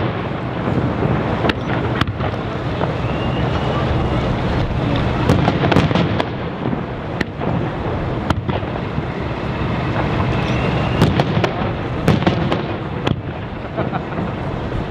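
Aerial fireworks shells bursting in an irregular string of sharp bangs and deeper booms, a dozen or more, over a dense rumbling background. A couple of faint whistles come from rising shells.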